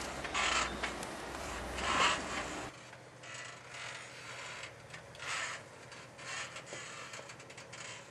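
Jeep Wrangler JK crawling over trail rock: a low engine rumble heard from inside the cab, with two louder creaking, rubbing bursts. About three seconds in the sound drops abruptly to fainter, scattered scrapes and crunches as a Jeep climbs the boulders.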